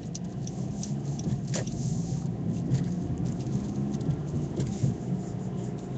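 Car engine and tyre noise heard from inside the cabin while driving: a steady low hum, with faint scattered ticks.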